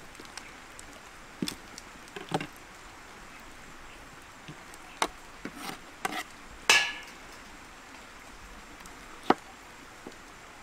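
Kitchen knife knocking on a wooden cutting board: about seven separate, irregular strokes, the loudest a little past the middle.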